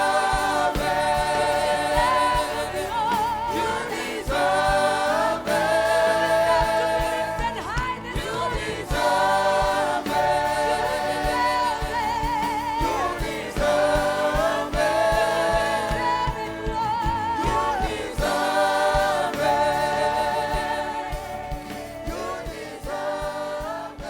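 Gospel worship song sung by a choir and congregation over a band with a steady beat, getting quieter near the end.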